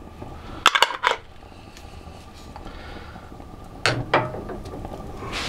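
Glass honey jar knocking and clinking against a stainless steel pot as it is set into a water bath: a pair of short knocks about a second in and another pair near four seconds.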